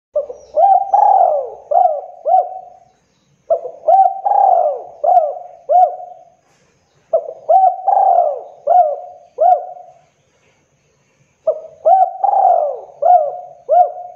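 Spotted dove (tekukur) singing its cooing song: four repeated phrases of about five coos each, one phrase every three and a half to four seconds, with short pauses between.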